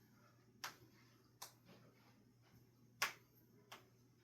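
Faint low hum of the running Casablanca Victorian ceiling fan's motor, broken by four sharp, separate clicks about a second apart.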